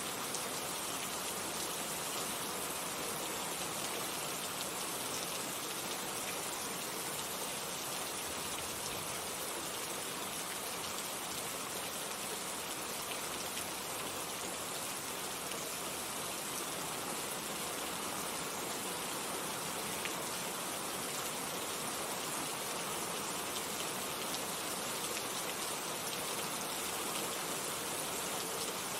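Heavy rain falling steadily, a dense even hiss of drops on surfaces with a few sharper individual drop ticks.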